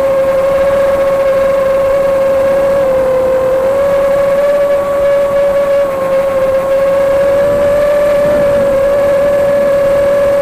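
Electric motor and propeller of an FPV aircraft running at steady cruise, a loud even whine that holds nearly one pitch with slight dips.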